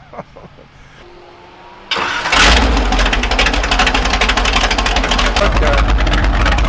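Vintage tractor engine starting up about two seconds in and then running loudly with a rapid, even firing beat and a heavy low rumble.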